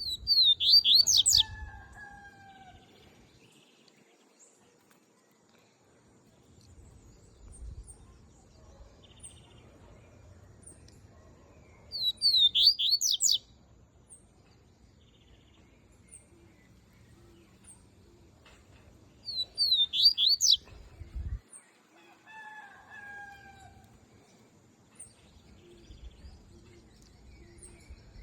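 Double-collared seedeater (coleiro) singing: three short bursts of rapid, high warbling notes, each about a second and a half long, at the start, around twelve seconds in and around twenty seconds in, with quiet gaps between. Fainter, lower sliding calls are heard a couple of times in the background.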